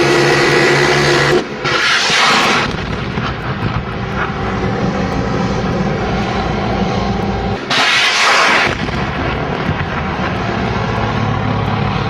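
Steady drone of aircraft engine noise, pitched and hissing, with three roughly one-second surges of louder, brighter hiss: one at the start, one about two seconds in, and one about eight seconds in.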